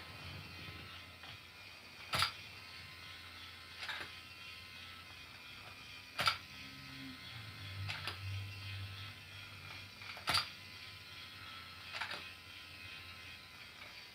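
Battery-powered toy automatic domino layer running: a small geared motor whirs steadily, and a sharp plastic click comes every two to four seconds as its mechanism lays down a domino.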